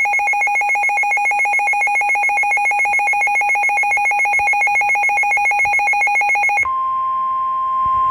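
Emergency alert tones: a loud, rapidly pulsing electronic attention tone. About six and a half seconds in it gives way to a steady single-pitched alarm tone, like the NOAA Weather Radio warning alarm that precedes a weather warning.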